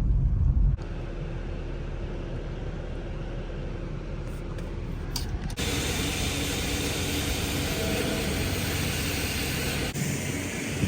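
Steady road and engine noise inside a moving BMW M340's cabin. It drops abruptly about a second in, then turns brighter and hissier about halfway through.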